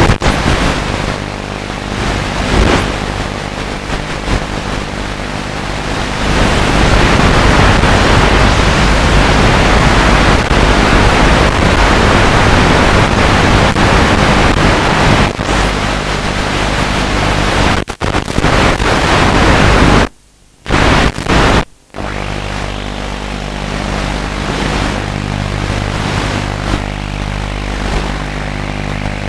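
Rushing wind noise with the low, steady hum of a small motor and propeller, as picked up on board an FPV model aircraft in flight. The sound cuts out suddenly twice, about twenty and twenty-one and a half seconds in.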